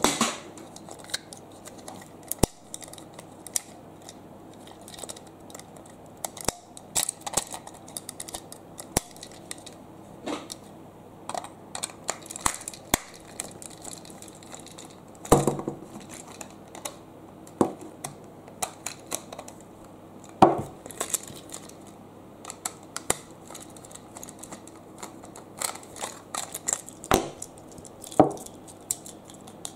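Hard plastic toy train and playset pieces clicking and clacking as they are handled: many irregular small knocks, with a few louder clacks, over a faint steady low hum.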